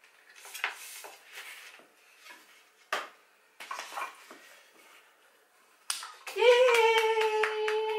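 Wooden stacking rings knocking against each other and the toy's peg, with a few short clacks and light rustling. Near the end, a toddler lets out one long, steady 'aaah' lasting about two seconds, with knocks still heard under it.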